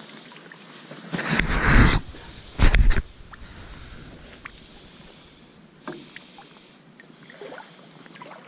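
Water sloshing and lapping around a drift boat, with small knocks and two loud, deep bursts about a second in and near three seconds.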